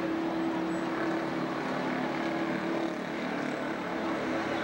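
City street traffic at a busy crossing: a steady wash of road noise with a vehicle engine's low, even hum, which eases after about three seconds.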